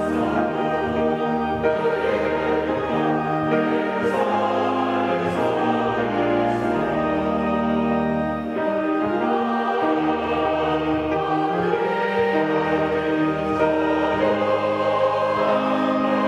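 Mixed church choir singing a hymn anthem in Korean, in sustained chords, with organ and piano accompaniment.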